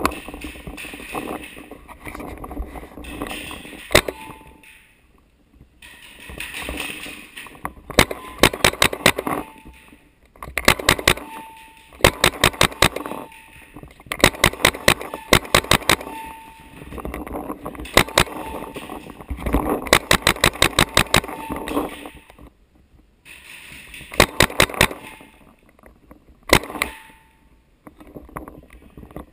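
Paintball markers firing in rapid strings of several shots a second, in repeated bursts, with noisy scuffling and movement between them.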